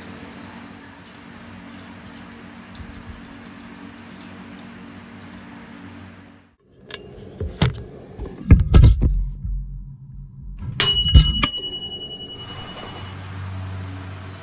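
A steady low hum that breaks off about six and a half seconds in. Then a run of loud knocks and clatter, with one bright metallic ring near the eleven-second mark that dies away over about two seconds, before the hum returns.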